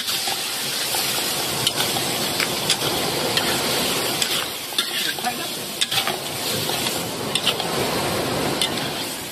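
Shellfish and sea snails sizzling in oil in a metal wok as they are stir-fried, with a metal spatula scraping and clicking against the wok and the shells many times.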